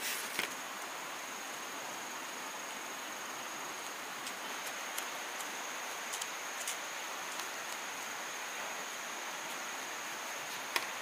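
Outdoor garden ambience: a steady high insect drone over a broad hiss, with a few soft taps and scrapes as seedlings are planted and soil is worked by hand with a small tool.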